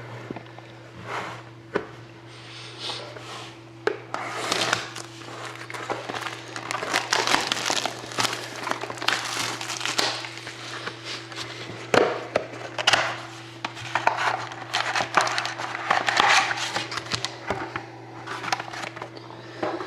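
Plastic wrapping and card packs being torn open and crinkled by hand, an irregular rustling and crackling with a few sharper snaps, over a steady low electrical hum.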